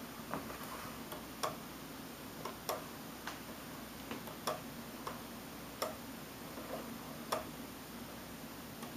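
Faint, unevenly spaced clicks, about a dozen over nine seconds, from the DVD-drive stepper motors of a homemade Raspberry Pi laser engraver stepping the sled during engraving.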